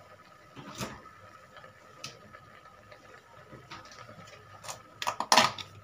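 Kitchen utensils clinking: a few sharp ticks spaced over several seconds, then a quick, louder clatter of a metal spoon against a bowl near the end.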